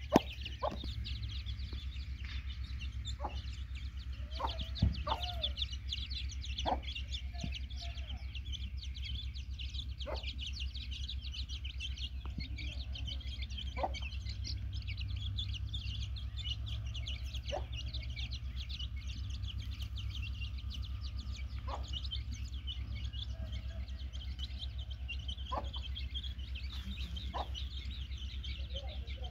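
Domestic chicks peeping continuously in many short high chirps, with a hen giving a short, sharp cluck every few seconds.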